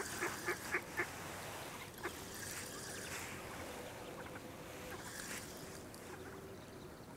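Waterfowl calling: a quick run of honking calls, about four a second, that stops about a second in, then one more call about two seconds in.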